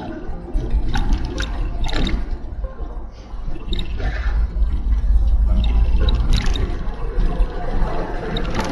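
Car driving over a wet, puddled gravel road in the rain: tyres hissing and splashing through standing water over a steady low road rumble, with a few sharper splashes along the way.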